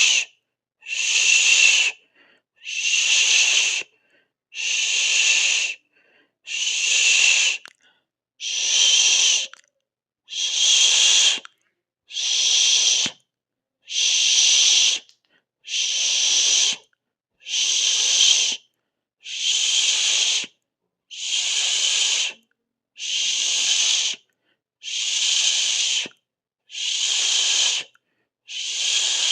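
A person hissing through the mouth, a drawn-out 'sss' held for about a second and repeated about once every two seconds, with silence between the hisses.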